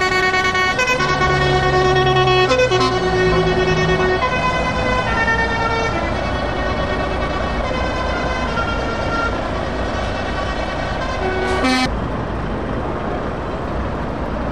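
A truck's musical air horn playing a tune of held notes, the pitch stepping up and down every second or so, then cutting off suddenly near the end. Under it, the low steady run of truck diesel engines rolling past.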